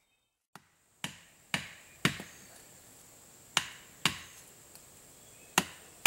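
Wooden club striking the back of a pocket knife blade, driving it into a standing tree trunk to chop out a felling wedge: about six sharp wooden knocks in short runs, roughly half a second apart, the first about half a second in.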